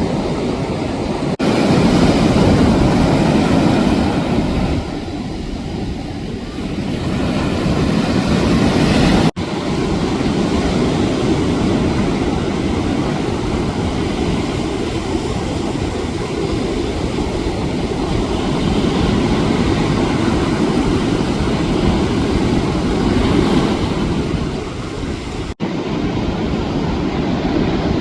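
Loud, continuous rushing and rumbling of ocean surf and wind on the camera microphone, heaviest in the low end. It breaks off abruptly three times, at a cut about a second in, one about nine seconds in and one near the end.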